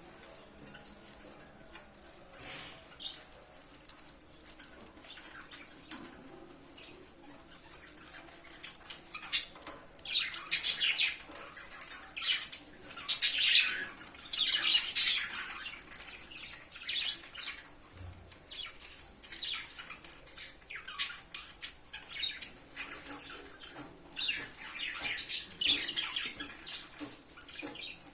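Lovebird flapping its wings, irregular rustling bursts that come thickest and loudest around the middle.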